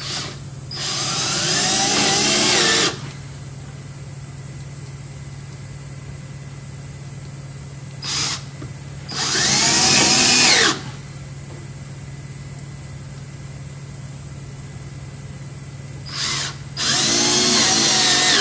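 Cordless drill driving self-tapping screws through a plywood panel into the vehicle body, in three runs of about two seconds each. Each run is led by a brief tap of the trigger.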